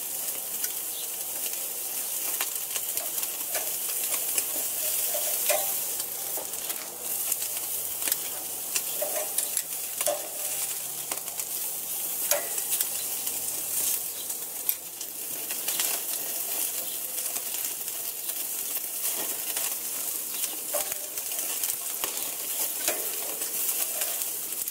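Thin slices of pork searing on the infrared Sizzle Zone burner of a Napoleon gas grill, sizzling steadily with scattered crackles and pops.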